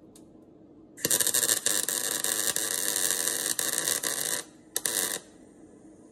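MIG welding arc crackling as a weld is run on a steel car sill: one burst of about three and a half seconds starting about a second in, then a second short burst of about half a second.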